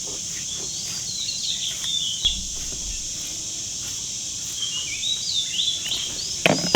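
Insects droning steadily at a high pitch while a bird twitters short rising and falling phrases in two bouts. A sharp knock comes near the end.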